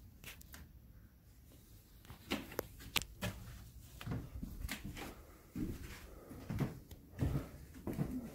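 Footsteps on a bare floor, with low thuds about once a second in the second half, after a scatter of sharp clicks and knocks.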